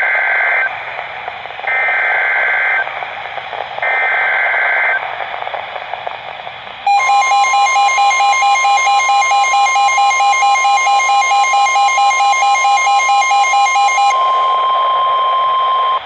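Three roughly one-second bursts of rasping EAS/SAME digital header data, about two seconds apart, announcing a new alert. About seven seconds in, the NOAA Weather Radio 1050 Hz warning alarm tone starts, steady. For about seven seconds it is joined by the Midland weather radio's own loud, rapidly pulsing alert beep.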